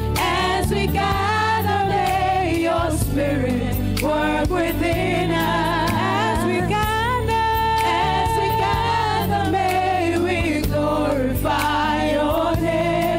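A woman singing a gospel worship song into a microphone over steady instrumental backing, with melodic runs and one long held note in the middle.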